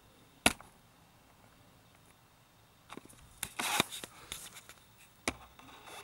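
A sharp knock, then a short cluster of clicks and rattling, then another sharp knock, like handling at a door on the way into a basement.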